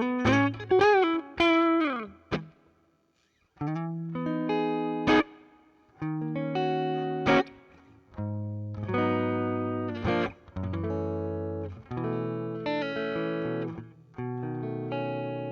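Electric guitar played through a Zoom G2 Four's Fender Deluxe Reverb amp simulator: a short lead phrase of single notes with bends and vibrato, a brief pause, then a run of chords, the last one left to ring.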